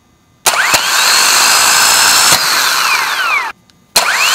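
Car starter motor and solenoid on a bench test: the solenoid clicks in about half a second in and the motor spins up with a rising whine and runs, then cuts off suddenly; just before the end it clicks in and spins up again. The pinion gear pops out and spins without hiccups: a working starter and solenoid.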